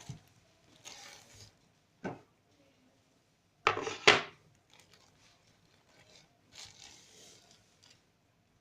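Handling noises from unwrapping and handling the coconut sweet bread and its packaging: short rustles and light knocks on a surface, a few seconds apart, the loudest a pair about four seconds in.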